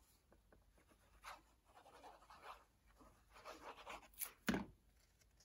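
Faint scratchy rubbing of a Tombow liquid glue bottle's tip drawn across card stock in wavy lines, with one sharp tap about four and a half seconds in.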